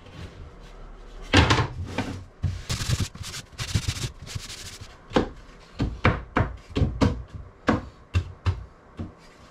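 Pieces of wood knocked and tapped together by hand, with some rubbing and scraping between the knocks: about a dozen irregular sharp knocks, the loudest about a second and a half in.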